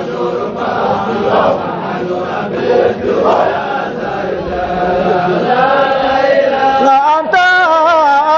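A group chanting a Qadiri Sufi dhikr in unison, many voices together. About seven seconds in, a single voice takes over, singing a clear wavering line.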